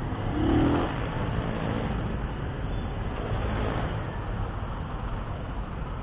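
Motorcycle engine running in slow road traffic, picked up by a helmet microphone, with a short rising rev about half a second in.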